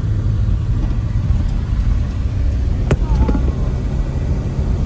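Steady low rumble of a tour vehicle driving, heard from inside the cabin, with a single sharp click a little under three seconds in.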